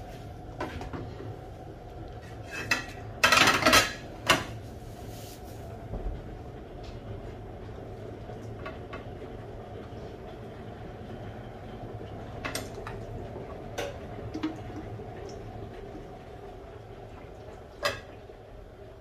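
Pots, pans and utensils being handled: scattered clinks and knocks, with a burst of louder clattering about three seconds in and single strikes later, over a steady low hum.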